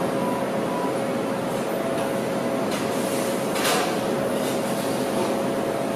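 Doosan forklift running amid a steady industrial machinery hum, with a faint constant whine. A short hiss comes about three and a half seconds in.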